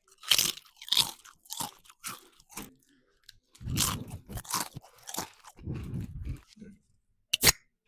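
Crunchy food being bitten and chewed close to the microphone: a run of irregular crackling crunches.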